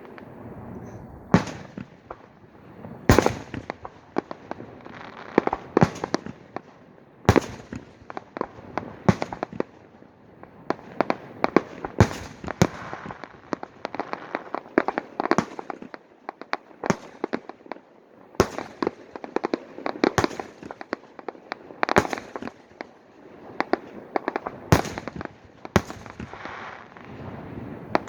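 Aerial fireworks exploding: loud sharp bangs every one to two seconds, with dense crackling between them.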